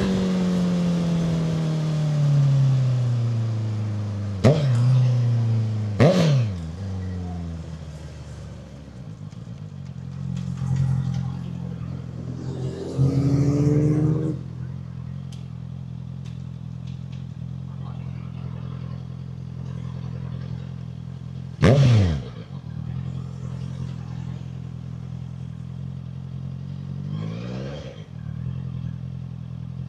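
A 2014 Honda CB650F's inline-four engine, breathing through a custom muffler built from a CBR650R exhaust. Its revs fall back to idle at the start. Then come sharp throttle blips that rise and drop quickly, three of them loud and a smaller one near the end, plus a short rev about halfway through, with a steady idle in between.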